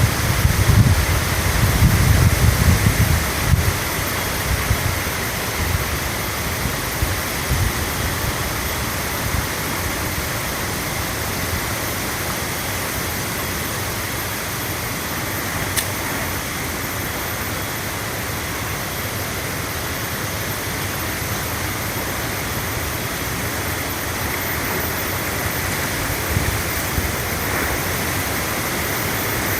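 Steady rushing outdoor noise, with wind buffeting the microphone in a low gusty rumble during the first few seconds.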